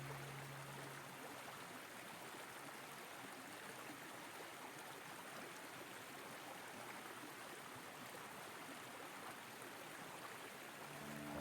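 A stream flowing: a faint, steady rush of water. Soft music fades out in the first second and comes back in near the end.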